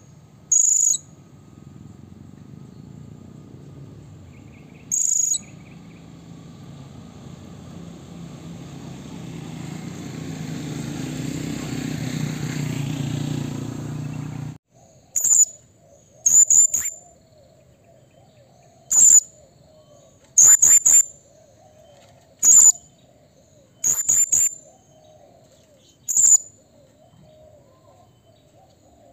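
Blue-crowned hanging parrot (serindit) giving short, shrill, high-pitched calls, some in quick pairs. Two calls come well apart, then a low rumbling noise swells and cuts off abruptly about halfway through, followed by a run of calls every one to three seconds.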